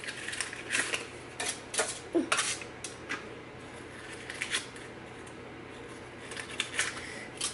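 Paper cupcake liners crinkling as they are peeled apart from a stack: a run of short, crisp rustles and clicks, thick for the first three seconds, then a few more near the end.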